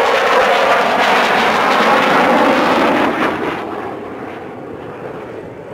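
Fighter jet engine roar on a flypast, loud at first, then dropping away about three and a half seconds in to a quieter, duller rumble.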